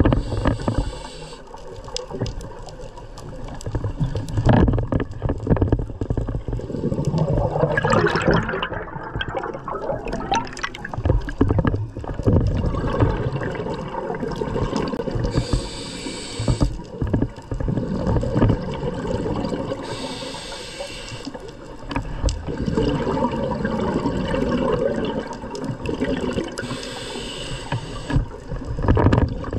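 A scuba diver's own regulator breathing underwater. There are short hissing inhalations near the start and at about 15, 20 and 27 seconds in, and rumbling, gurgling exhaled bubbles between them.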